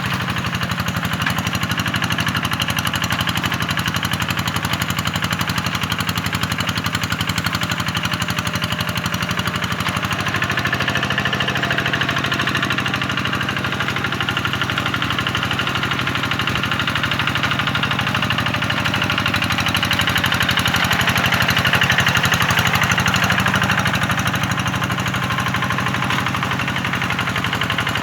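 Tractor engine running steadily under work, getting a little louder around three-quarters of the way through.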